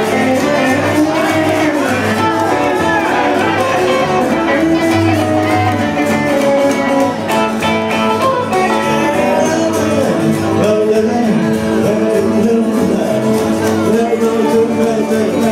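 Live rockabilly trio playing: upright double bass and two acoustic guitars, with a steady beat.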